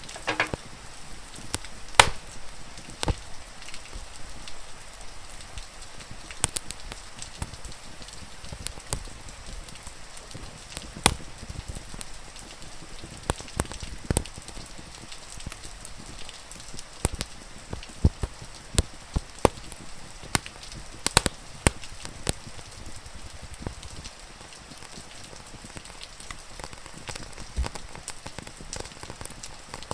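Wood fire crackling, with irregular sharp pops over the steady hiss of rain.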